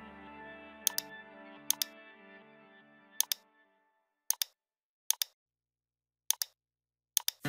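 Computer mouse clicks, each a quick double tick, about seven times over background music whose held notes die away about halfway through. The second half is silent between the clicks.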